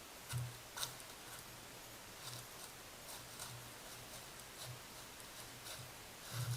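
An animal stepping through dry leaves: faint rustling crunches with soft low thuds, irregular, about once a second, over the steady hiss of a trail camera's microphone.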